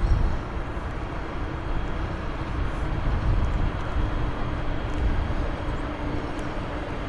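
Railway train running through a station: a steady rumble with a low hum that comes in about halfway through.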